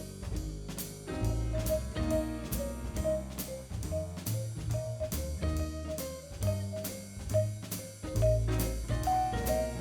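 Instrumental background music: a drum kit keeps a steady beat under a bass line and melody notes.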